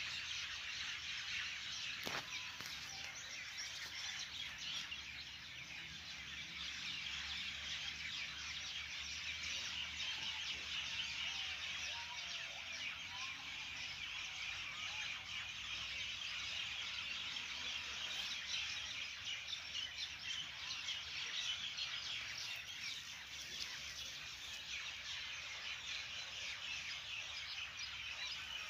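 Steady outdoor chorus of dense, high-pitched chirping, with a few fainter lower calls around the middle.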